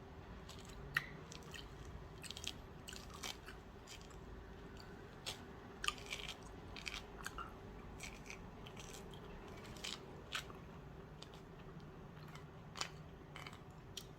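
A person eating quietly up close: scattered small clicks, smacks and chewing sounds, faint overall, over a low steady hum.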